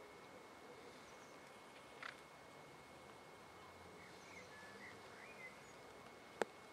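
Near silence: faint outdoor hiss with a few faint bird chirps a little past the middle, and one sharp click near the end.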